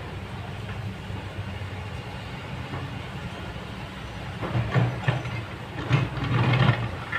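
Kobelco crawler excavator's diesel engine running steadily, then its bucket digging into a pile of loose rock: a run of loud clattering and scraping of stone, with the engine working harder, from about four and a half seconds in.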